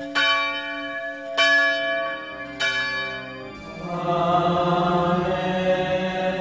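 A church bell tolling, three strikes about a second and a quarter apart, each ringing on with many overtones. About three and a half seconds in, a low male voice begins a liturgical chant that carries on over the fading bell.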